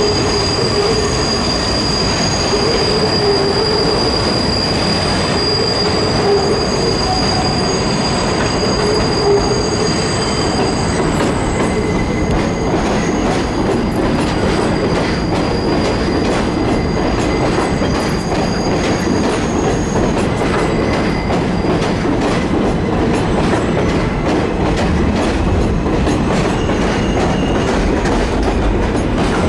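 R188 subway train running on rails with a steady rumble. A high wheel squeal rings through roughly the first half and fades out, and rapid clicking of wheels over the rails runs through the second half.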